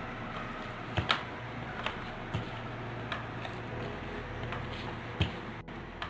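Hands kneading crumbly dough in a stainless steel bowl, with a handful of sharp, irregular ticks and knocks against the metal bowl.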